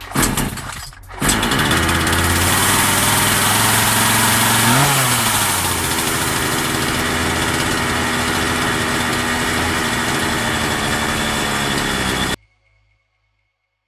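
Partner 350S chainsaw's small two-stroke engine sputtering for about a second, then catching and running steadily. About five seconds in it revs up briefly and drops back, and the sound cuts off abruptly near the end.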